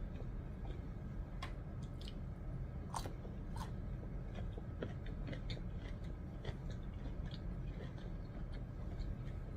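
A person chewing food close to the microphone, with scattered small mouth clicks and smacks over a steady low hum.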